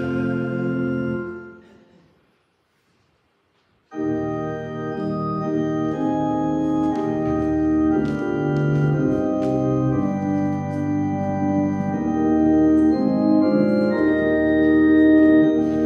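A held chord fades out in the first two seconds, and after a short silence organ music starts about four seconds in, playing slow, sustained chords that change every second or so.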